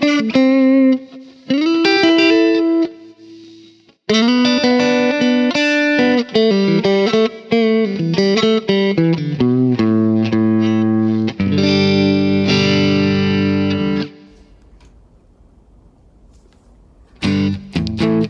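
Electric guitar played through the Neural DSP Mesa Boogie Mark IIC+ Suite amp-modelling plugin: single-note lines with bends for the first few seconds, then a run of ringing chords. The playing stops about 14 s in, leaving a low hum, and picking starts again near the end.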